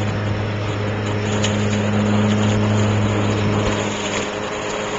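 An engine running steadily at one constant pitch, with a hum and a broad hiss.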